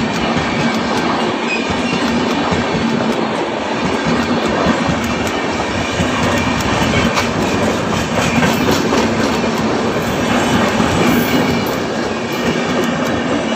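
Passenger coaches of an express train running past at speed: a loud, steady rush of wheels on the rails with clickety-clack over the rail joints. It starts to fade near the end as the last coach goes by.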